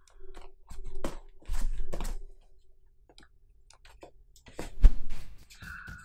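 A few scattered knocks and clicks from handling things on a computer desk, the loudest a dull thump about five seconds in.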